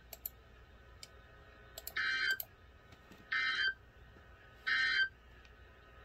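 Three short electronic dings, each about half a second long and about a second and a half apart, over a faint steady hiss.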